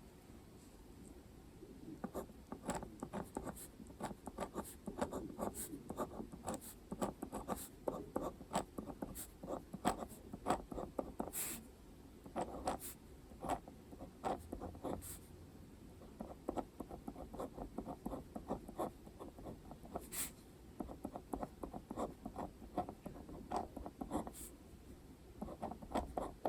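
Pen writing on paper: quick, short scratching strokes, with a few sharper ticks and a brief pause partway through.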